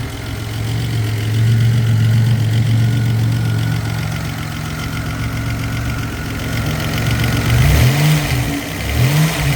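Rebuilt Buick Grand National's turbocharged 3.8-litre V6 running steadily, then revved twice near the end, its pitch rising and falling with each blip.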